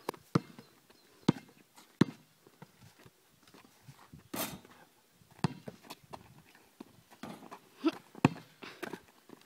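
A basketball bouncing on an outdoor court: several separate sharp thuds at uneven spacing. About four and a half seconds in, a longer, noisier hit as a shot strikes the hoop.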